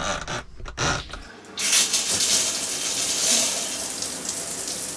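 A few short knocks, then about a second and a half in, a camper van's shower starts spraying water in a steady hiss.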